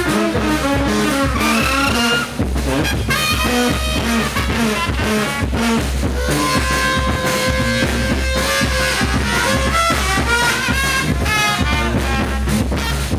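Brass band playing live: trumpet lines over a steady drum beat.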